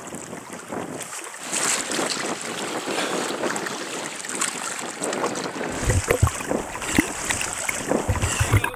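Wind rushing on the microphone over the wash of sea water against shoreline rocks. Heavier low buffeting thumps come in over the last few seconds.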